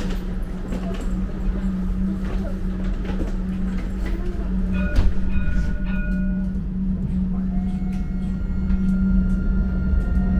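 Interior of a Dubai Tram car: a steady electrical hum, a knock about five seconds in followed by brief high tones, then a steady high whine from about seven seconds in as the tram pulls away from the stop.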